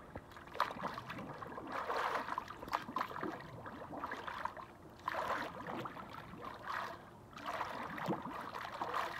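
Hot tub water sloshing and gurgling in uneven surges as a person stays submerged under the surface.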